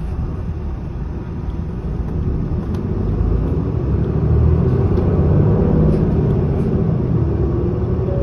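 Interior running sound of a 2007 Isuzu Erga city bus, its inline-six diesel engine pulling the bus away from a stop and growing louder as it accelerates, with a faint rising whine near the end.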